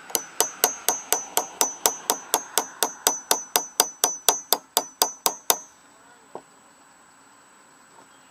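A steel hammer strikes a lawn tractor's electric starter rapidly, about four blows a second, some twenty in all, each with a ringing metallic clang. The blows are an attempt to free the starter's stuck pinion gear. One lighter tap follows a little later.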